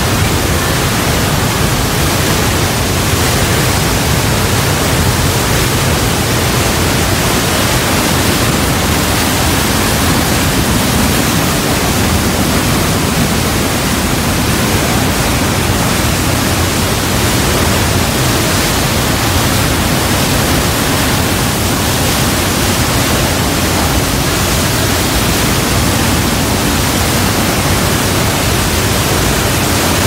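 Waterfall pouring down a narrow rock gorge: a loud, steady rush of falling water.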